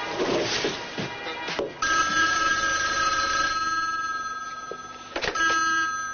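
Telephone ringing twice, a steady two-tone ring that starts about two seconds in and comes again near the end. Background music fills the first couple of seconds.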